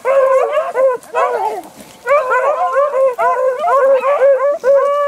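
Beagles baying on the track of a freshly jumped swamp rabbit: a string of short, arched bays, a brief lull about a second and a half in, then bays coming thick and fast, with one longer drawn-out bay near the end. The cry is the hounds giving mouth as they run the rabbit's scent.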